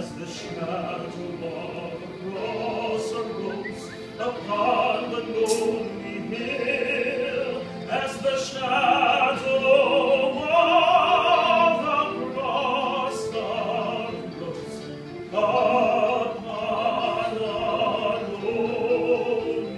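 A solo voice singing in a trained, operatic style, holding long notes one after another.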